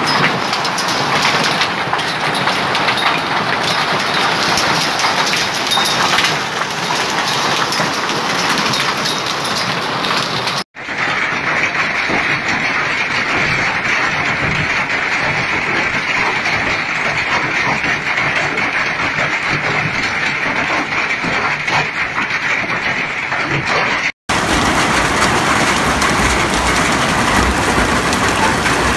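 A heavy hailstorm: large hailstones pelting down in a dense, steady clatter on roofs and ground. The sound breaks off briefly twice, about a third and four-fifths of the way through, and each time resumes with a slightly different tone as another recording of the storm begins.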